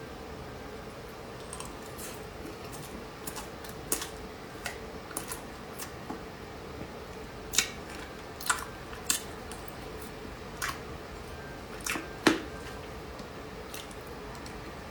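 Close-miked eating of desserts: scattered short, crisp clicks and crunches, the loudest ones in the middle and about twelve seconds in, over a steady faint hum.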